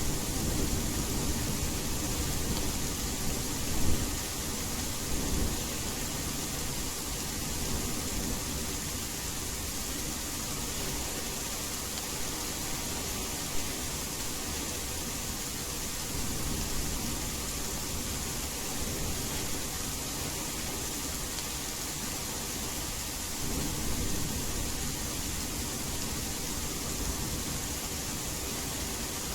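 Steady rain hiss blended with white noise, with distant thunder rumbling low underneath. The rumble swells near the start and again about three-quarters of the way through.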